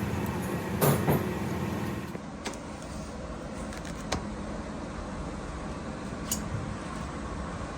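Steady mechanical hum, with a loud metallic clank about a second in. Around two seconds in the hum drops away, leaving a quieter even noise broken by a few sharp clicks.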